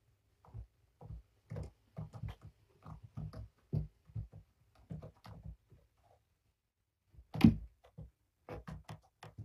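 Kittens at rough play: irregular soft thumps and scrabbles of paws on a carpeted cat tree and floor as they chase, pounce and wrestle, with one louder thump late on.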